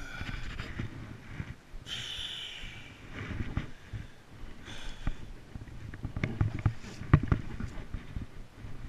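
Camera handling and rustling through bankside grass: uneven scuffs and low thumps, with sharp knocks about six to seven seconds in and two short hissing breaths at about two and five seconds.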